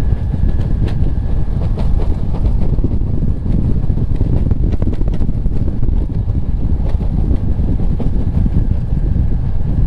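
Bass boat running across the lake under its outboard motor: a steady drone mixed with wind noise on the microphone.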